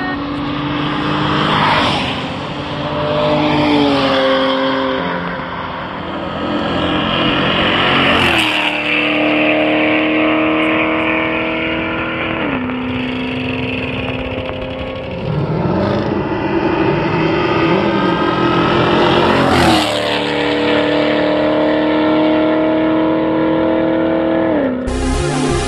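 Tuned cars drag racing, a modified BMW against a Dodge Charger Scat Pack: engines pulling hard at full throttle, their note holding high and then dropping at each gear change, with several loud surges.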